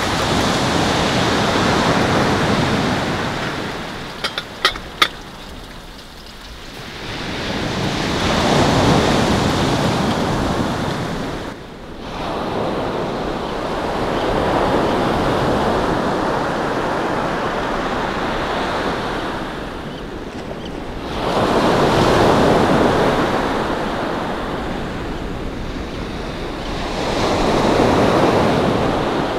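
Ocean surf on a pebble beach, the wash of the breakers swelling and fading in long surges every several seconds. About four to five seconds in, three short sharp clicks.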